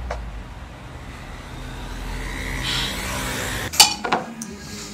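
Low city traffic rumble with a vehicle passing, swelling and fading about three seconds in; near the end the rumble stops and a sharp clink of glass or dishes follows, with a couple of lighter knocks.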